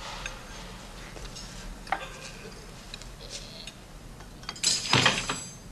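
Cutlery clinking against dinner plates and glassware, in scattered light taps, with a louder, longer clatter about five seconds in.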